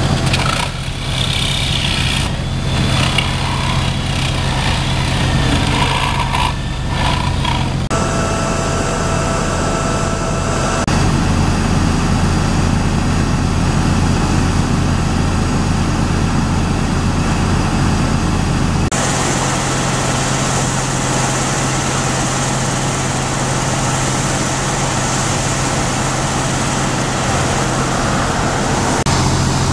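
Engine idling steadily with a constant low hum. The background noise changes abruptly a few times.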